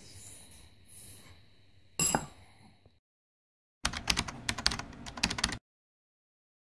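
A spoon clinks once against a ceramic bowl about two seconds in. After a short silence comes a quick run of rapid typewriter-style key clicks lasting under two seconds: a typing sound effect.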